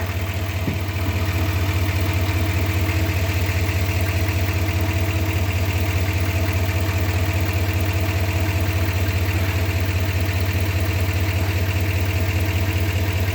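Duramax 6.6-litre V8 turbodiesel of a 2019 Chevy Silverado 3500 HD idling steadily.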